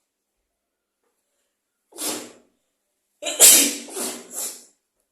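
Deliberately provoked sneezing, brought on by sniffing something to trigger it. One sneeze comes about two seconds in. Just after three seconds there is a louder sneeze, followed quickly by two shorter bursts.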